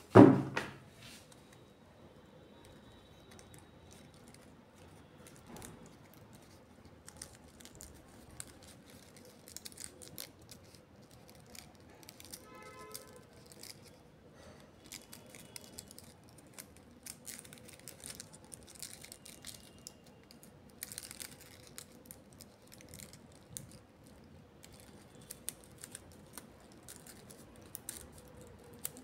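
A single loud thump at the very start, then scattered faint clicks and rustles of small things being handled.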